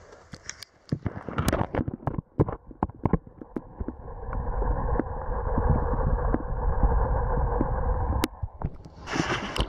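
Close handling noise from a camera held against the cave floor: a quick run of knocks and scrapes, then a steady rubbing rumble that cuts off suddenly near the end.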